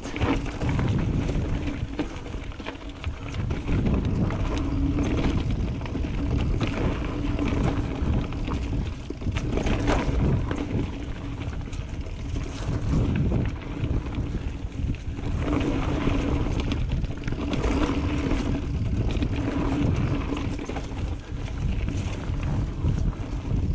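Mountain bike ridden on a dirt trail: wind buffeting the camera microphone, with the tyres rolling and the bike knocking and rattling over bumps. A low hum comes and goes through the ride.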